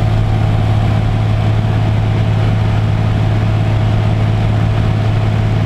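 Light aircraft's engine droning steadily in flight, with wind rushing in through the open jump door.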